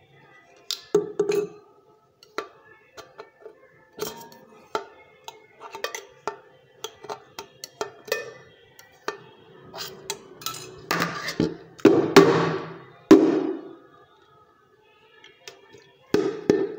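Stainless steel bowls clinking and ringing as a knife blade taps and pries at the rim of two bowls stuck one inside the other: a run of light metallic ticks, with a few louder rattling, scraping clatters about eleven to thirteen seconds in.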